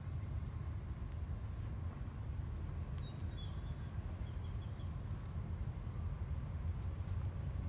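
Steady low outdoor rumble, with a small bird chirping a quick run of high notes from about two to four and a half seconds in.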